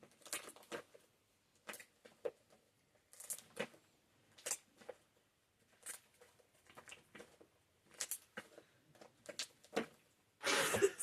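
Slime being stretched, folded over and squished by hand, giving irregular small crackles and pops as trapped air bubbles burst. A louder, denser burst comes near the end.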